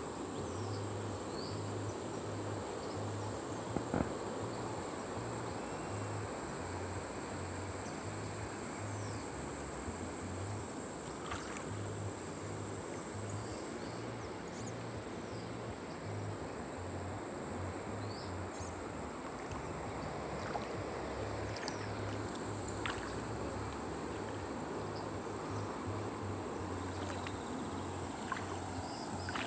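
Steady rush of a fast-flowing river, with a constant high-pitched insect drone over it and a choppy low rumble.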